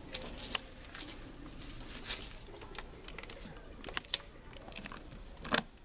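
Scattered light taps and clicks of gloved hands handling a wooden box, with a sharper knock near the end.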